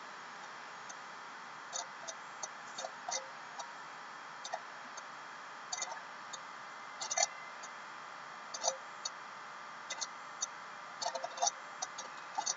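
Irregular light clicks from a computer's input devices being operated while a MATLAB program is run, over a steady hiss with a faint hum.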